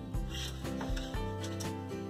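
Instrumental background music, a run of notes in a steady tune.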